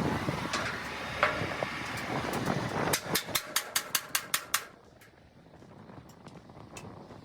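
A vehicle running, then a quick run of about nine sharp clicks, about five a second, after which it goes much quieter.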